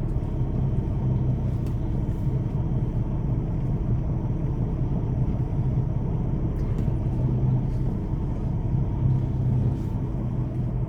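Semi truck's diesel engine running steadily, heard from inside the cab as a low, even rumble with a constant hum.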